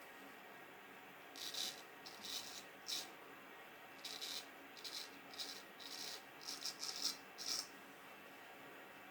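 A straight razor scraping through beard stubble in short strokes, about a dozen quick rasps, faint.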